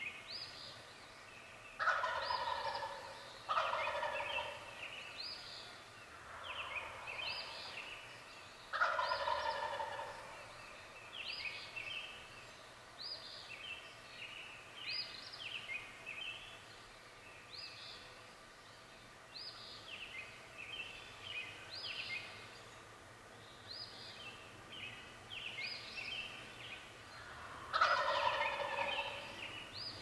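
Male wild turkey gobbling four times: two gobbles close together near the start, one about nine seconds in and one near the end, each lasting about a second. Under them runs a steady dawn chorus of many songbirds chirping and singing.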